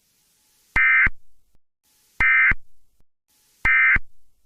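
Emergency Alert System end-of-message signal: three short bursts of digital data tones, about a second and a half apart, marking the end of the alert message.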